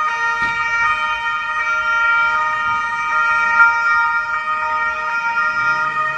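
Several police car sirens sounding together, a loud, dense chord of steady overlapping tones with small shifts where individual sirens change note.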